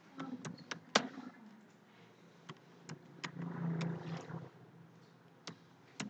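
Sharp, scattered clicks of computer keyboard keys and a mouse, about ten in all, the loudest about a second in, over a faint low rumble that swells about three to four seconds in.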